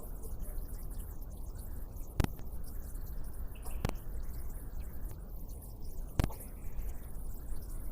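Water dripping: three sharp drops landing about two seconds apart, over a steady low background rumble.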